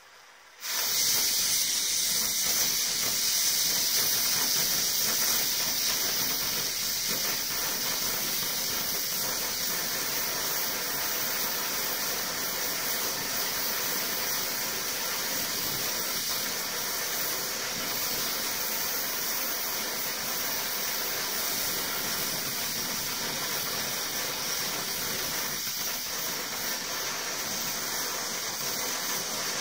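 Butane blowtorch flame starting suddenly about half a second in, then hissing steadily as it heats an aerosol can.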